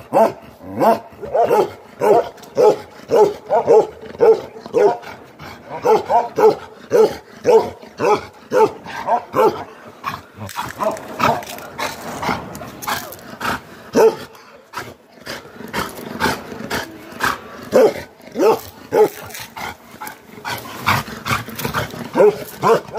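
A Bakarwal livestock guardian dog barking aggressively in a long run of short, sharp barks, about two a second, with brief pauses about ten seconds in and again near the middle, warning off the person approaching it.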